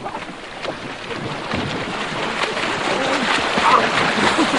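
Water splashing and surging, growing louder as it fades in, with a few brief cries near the end.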